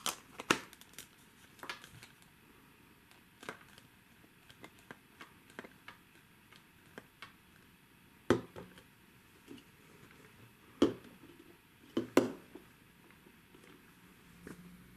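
Hard plastic nesting toy figures being handled: scattered clicks and knocks as the two halves of a stacking cup are fitted together and set down, with the loudest knocks about eight, eleven and twelve seconds in.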